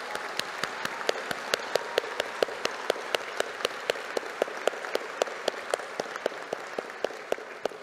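Audience applause from a crowd, with sharp, evenly spaced claps about four a second standing out above it; it dies away at the end.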